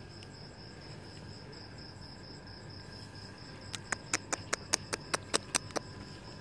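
Cricket chirring steadily at a high pitch. About halfway through comes a quick run of about a dozen sharp clicks, roughly five a second, louder than the chirring.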